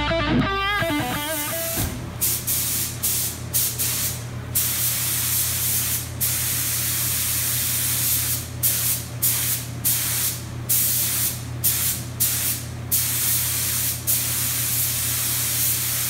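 Compressed-air paint spray gun spraying a motorcycle frame: a steady hiss of atomising paint, broken by many brief gaps as the trigger is released between passes. A steady low hum runs underneath.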